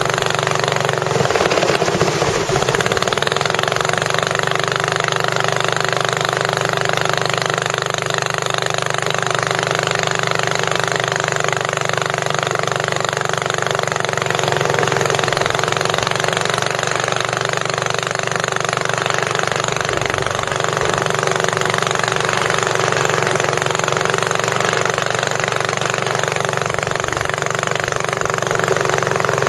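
Boat engine running steadily and loudly at an even speed.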